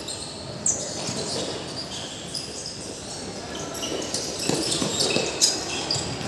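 Players' shoes squeaking on a hard court floor during a football match, many short high squeaks, with a ball thudding about a second in and again near the end. Faint shouts from players come in the background.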